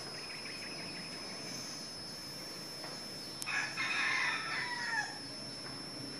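A rooster crowing once, about three and a half seconds in: a single call lasting about a second and a half that falls in pitch at the end.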